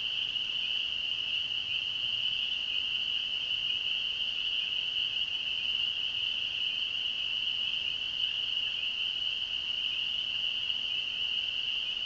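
Dense nighttime chorus of crickets: a steady, high-pitched trill.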